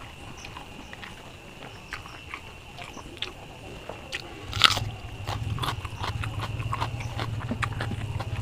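Close-miked hand-eating: small wet clicks of fingers working rice, then a sharp crunchy bite about halfway through, followed by steady close chewing.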